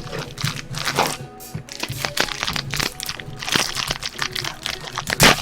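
Trading-card pack wrappers being torn open and crinkled, with irregular crackling and rustling, over background music.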